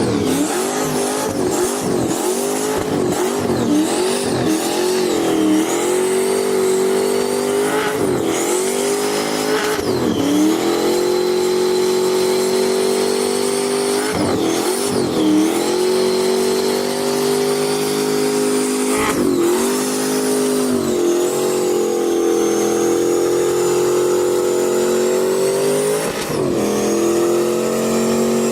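Turbocharged Toyota 1UZ V8 revving hard in a burnout, held high for long stretches with repeated quick drops and rises in pitch. A thin high squeal rides above the engine at times.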